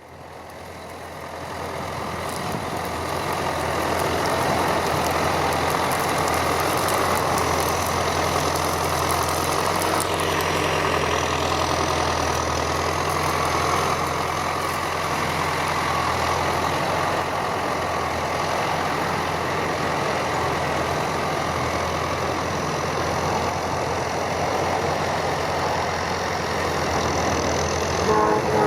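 John Deere 5720 tractor's diesel engine running steadily, along with the working noise of the Feraboli round baler it pulls baling straw. The sound fades in over the first few seconds, then holds level.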